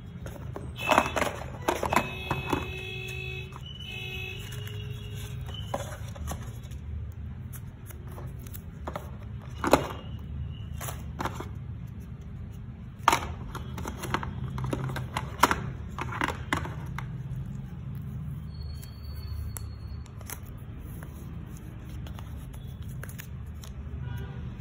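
Cardboard phone box and packaging handled by hand: scattered sharp clicks, taps and light rustles, a cluster of them in the first few seconds and single ones later, over a steady low hum. A few brief high tones sound about two to four seconds in.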